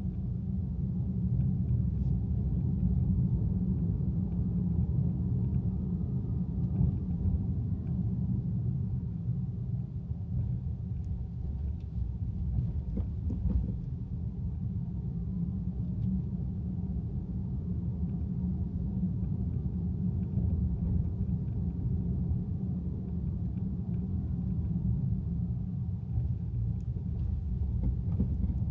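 Steady low rumble of a car being driven on city roads: tyre, road and engine noise.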